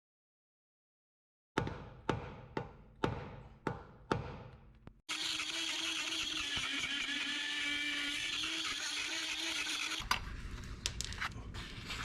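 A hammer striking metal about six times in three seconds, then a power tool running steadily for about five seconds, then more quick metallic strikes and clatter.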